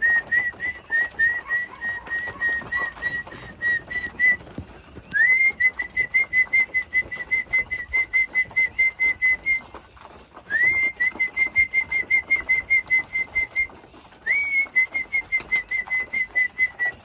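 Fast call-in whistle for racing pigeons: four bursts, each a rising swoop into a rapid run of short, high notes on one pitch, about four or five a second, signalling the flock to come into the loft.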